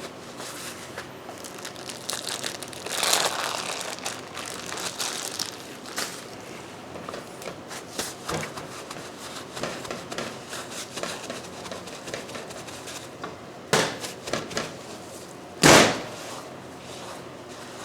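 Paper towels crinkling and patting against a raw beef tenderloin to blot blood off its surface, with scattered soft taps and rustles. Two heavy thuds near the end, the louder one about two seconds after the first.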